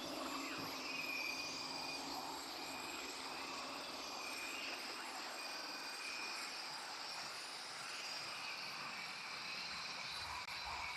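Steady jungle-style ambience: a continuous chorus of insects chirring in high tones over a dense, even hiss.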